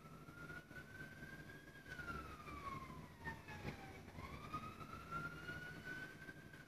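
An emergency-vehicle siren wailing faintly, its tone rising slowly and then falling, twice.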